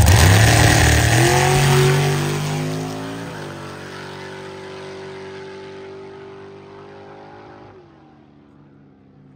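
Drag car accelerating hard away down the strip, its engine pitch climbing and then dropping at each gear change, fading steadily into the distance.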